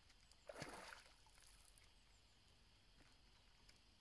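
Near silence of calm outdoor air, broken by one soft, brief rustle of noise about half a second in.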